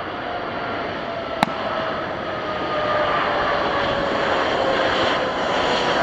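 Boeing 737-800's CFM56 jet engines running with a roar and a slowly falling whine as the jet rolls along the runway after landing, growing a little louder about halfway through. A single sharp click about a second and a half in.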